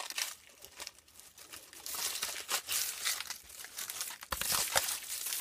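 A hand rummaging through damp soil, dry leaves and grass stems, rustling and crackling in irregular strokes, with a louder scrape about four seconds in.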